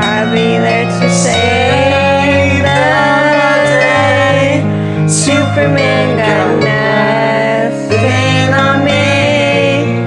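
A singing voice holding long, sliding notes over a piano-led pop karaoke backing track.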